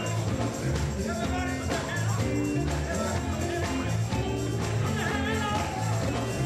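Live gospel music: a band playing a steady beat and a bass line under singing voices.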